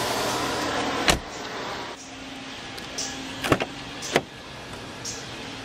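Mercedes-Benz E63 AMG sedan doors: the front door shuts with a solid thud about a second in, then the rear door's handle and latch give two sharp clacks as the rear door is pulled open.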